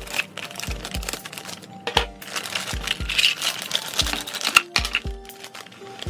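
Background music with a steady bass beat, over the crinkling of a clear plastic bag as it is cut open with scissors and handled.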